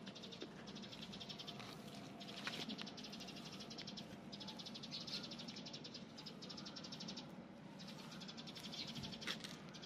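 Faint, high-pitched rapid trill: an animal call made of fast even pulses, repeating in phrases of about two seconds with short breaks, and a couple of soft clicks.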